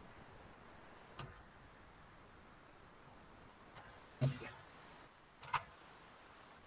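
A few sharp computer mouse clicks: one about a second in, one just before four seconds, and a quick double click about five and a half seconds in. Between them comes a short low murmur, over faint room tone.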